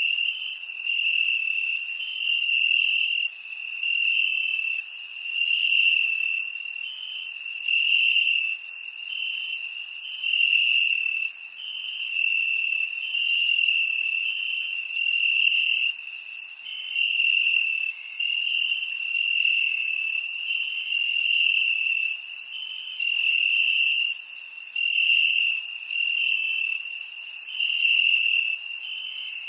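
Crickets chirping: a high-pitched trill that swells in pulses of about a second, one after another every second and a half to two seconds, with faint sharp ticks above it.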